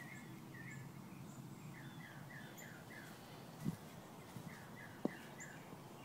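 Faint bird calls: runs of short downward-sliding chirps, a few a second, with two brief soft knocks partway through.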